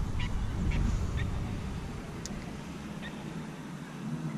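Wind rumbling on the microphone, heaviest in the first second and a half, with a few short high chirps early on and a single sharp click a little over two seconds in.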